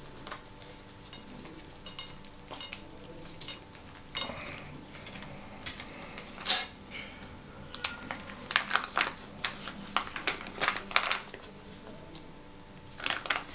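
Metal fork clinking and scraping on a ceramic plate as the food from an MRE pouch is spread out. There is a single sharp clink about six and a half seconds in, then a quick run of clinks from about eight seconds on.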